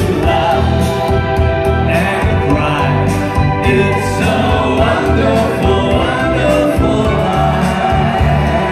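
Live band playing a pop song loud, with a male lead vocal and backing singers over a heavy bass and drums.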